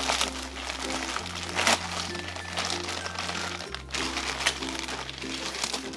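White plastic poly mailer crinkling and crackling as it is handled and pulled open, with sharp crackles about a tenth of a second and a second and a half in. Background music with a steady bass line plays underneath.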